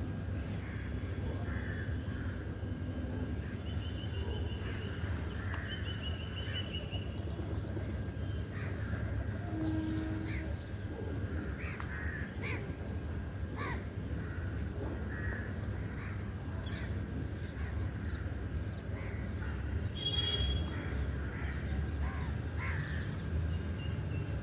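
Crows cawing repeatedly, with a few brief higher chirps from other birds and a steady low hum underneath.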